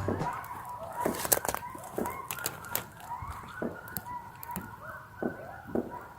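Birds honking, many short calls overlapping over and over, with scattered sharp clicks.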